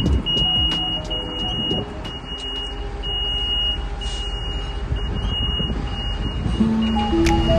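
Heavy construction vehicle engine running, with a high-pitched warning beep repeating about once a second, typical of a reversing alarm.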